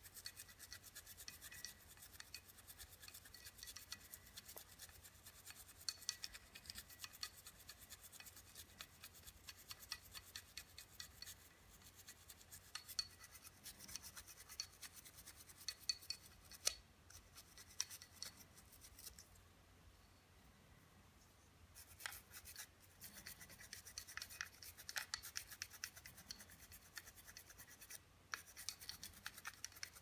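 Quick, scratchy scrubbing and rubbing on the parts of a Beretta 92FS pistol as the grime is cleaned off, with a pause of about two seconds a little past the middle.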